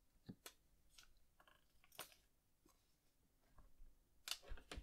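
Near silence with faint, scattered small clicks and taps, and a few louder ones near the end, from a small circuit board being handled and turned on a desk mat.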